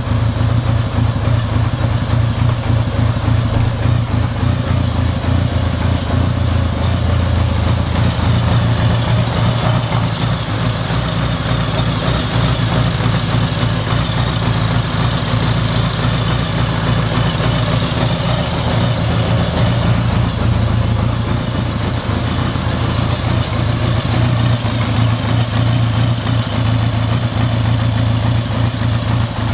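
1981 Honda Goldwing GL1100's flat-four engine idling steadily.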